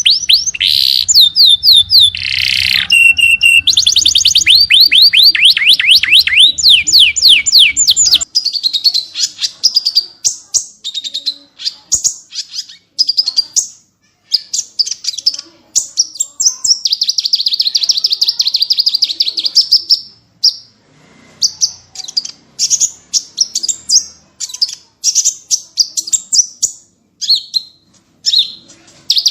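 Small songbirds singing rapid, high-pitched chattering phrases: fast runs of repeated sweeping notes, then, about eight seconds in, an abrupt switch to a different bird's choppier bursts of sharp notes and trills with short pauses between them.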